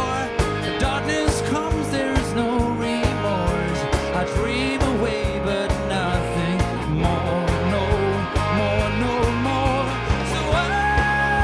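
Pop/rock band playing live, with a steady drum beat, bass and guitar. A melody line bends in pitch over it, and a long note is held near the end.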